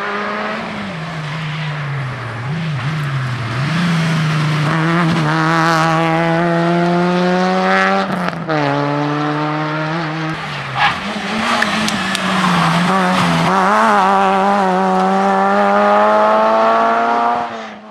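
Rally car engine running hard on a gravel stage. Its pitch wavers at first, then climbs steadily, drops sharply with a gear change about eight seconds in, and climbs again until the sound cuts off suddenly near the end.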